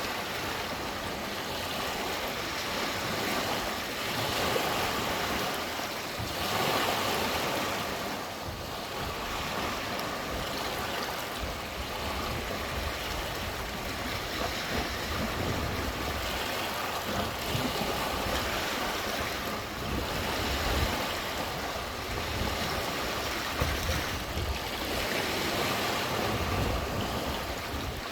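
Lake water washing and lapping against the shore in a steady rushing wash that swells every few seconds, with some low wind rumble on the microphone.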